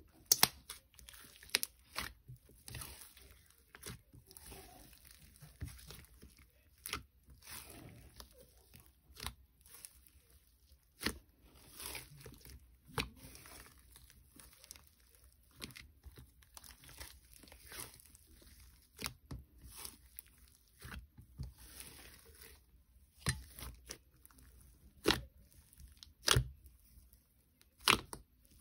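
Elmer's glue slime being squished and kneaded by hand, giving irregular sticky pops and clicks as air pockets burst.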